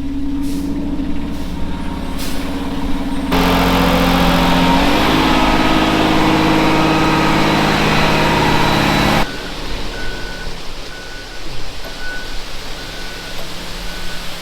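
Concrete mixer truck's diesel engine running, then abruptly louder a few seconds in as it revs up with rising pitch, before dropping off sharply. After that the engine runs quieter under a steady, evenly spaced beeping like a truck's reversing alarm.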